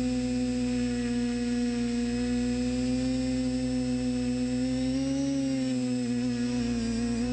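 Multirotor drone's electric motors and propellers humming steadily, heard from the onboard camera. About five seconds in the pitch rises a little as the craft lifts off, then wavers.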